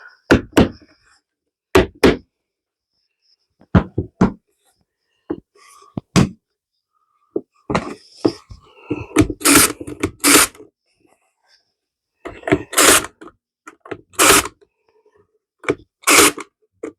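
Pins being driven into pine capping pieces on a wooden box: irregular sharp knocks, many in quick pairs, with some scraping of wood between them.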